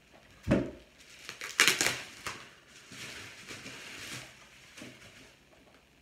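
A cardboard box and its packing material being handled and unwrapped: a thump about half a second in, a loud crinkling crackle a little later, then softer rustling.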